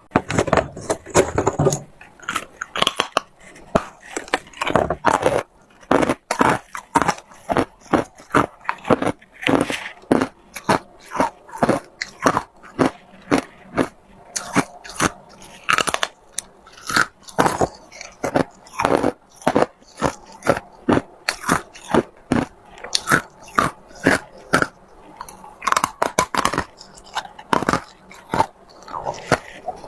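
Ice being bitten and chewed: a steady run of sharp crunches, two or three a second, as pieces of hard ice crack between the teeth.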